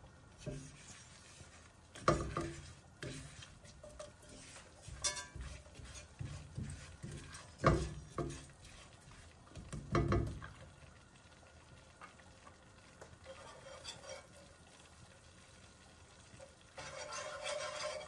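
Wire whisk and silicone spatula stirring a thick butter-and-flour roux in an enamelled cast-iron pot: irregular scrapes and knocks against the pot for the first half, a few quieter seconds, then steady whisking near the end. The roux is being cooked to take the raw starch out of the flour.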